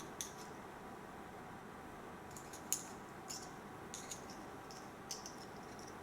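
Light, scattered clicks of small metal parts from a Shimano Curado MGL150 baitcasting reel's main gear stack being pulled apart and handled, the sharpest click nearly three seconds in.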